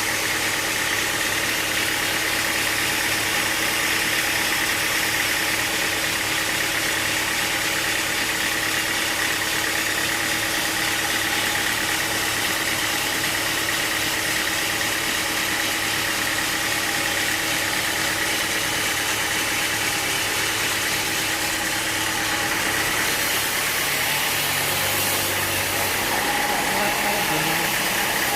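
Sawmill machinery running steadily: a constant engine hum with a higher whine over it. The low tones shift a few seconds before the end.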